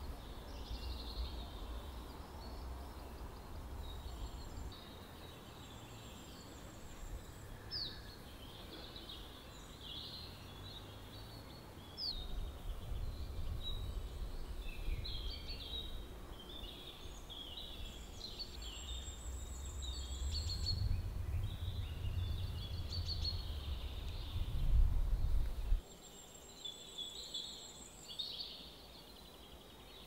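Several songbirds singing and calling, short chirps and trills overlapping throughout, with a few high thin trills. Underneath, a low rumble grows louder about twelve seconds in and cuts off suddenly near the end.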